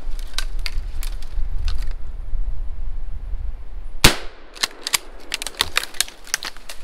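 A single shotgun shot about four seconds in, fired at a ruffed grouse, with a short ringing tail. Before it a steady low wind rumble on the microphone and the crackle of steps through twigs and dry leaves; after it, more scattered twig crackles.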